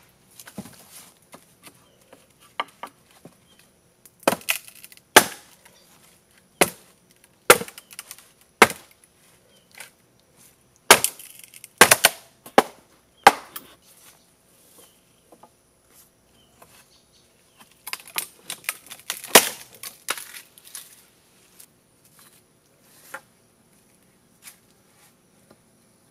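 Machete chopping and splitting green bamboo: irregular sharp strikes, with a dense run of smaller cracks and splintering about two-thirds of the way through.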